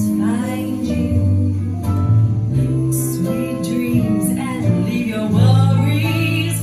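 Song with a singer, plucked guitar and a steady bass line, played back through a McIntosh MA12000 amplifier and Wharfedale Elysian 4 speakers.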